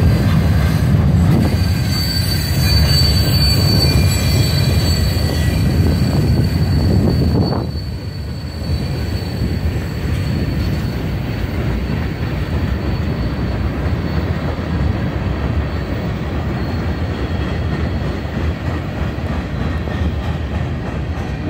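Freight train cars rolling steadily past on the track, a continuous rumble and clatter of steel wheels on rail, with a thin high wheel squeal during the first several seconds. The sound drops a little in loudness about eight seconds in.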